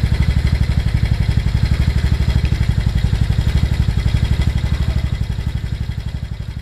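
2009 KYMCO Super 8 125cc scooter's single-cylinder four-stroke engine idling steadily, with a quick, even putter.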